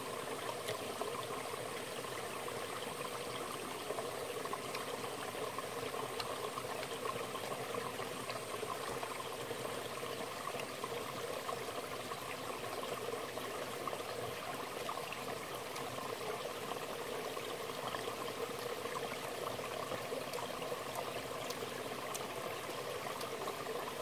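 Small rocky mountain stream running steadily, a constant water sound.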